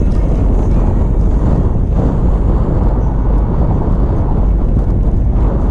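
Toyota FJ Cruiser's 4.0-litre V6 and tyres on a snowy trail: a steady, loud, low rumble of the vehicle driving.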